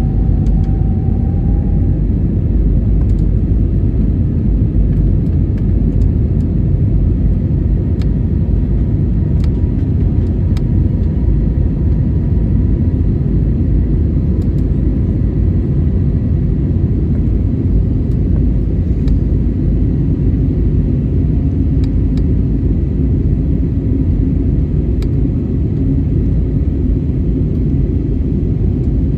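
Airliner's engines and airflow during takeoff: a loud, steady low rumble, with a faint tone that fades out in the first couple of seconds.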